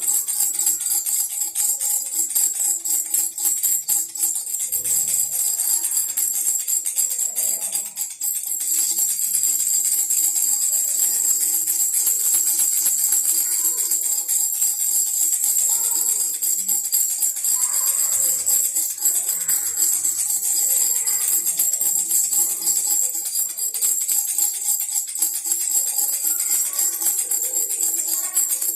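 Baby rattle shaken without pause, a dense jingling rattle, over a steady musical backing.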